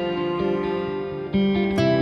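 Background music with guitar playing held chords; a new chord strikes about one and a half seconds in.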